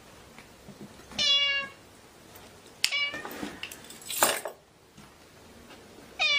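Domestic ginger tabby cat meowing twice, a few seconds apart, each meow about half a second long. Between the meows there is a sharp knock and a brief rustling noise.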